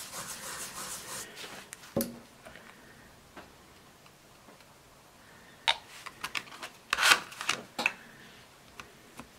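Nail-stamping tools being worked over a metal stamping plate: a light scraping in the first two seconds, a sharp tap about two seconds in, then a run of small clicks and taps between about six and eight seconds in.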